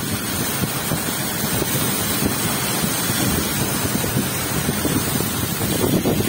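A car driving through shallow floodwater: a steady splashing hiss of water thrown up by the tyres, with wind buffeting the microphone.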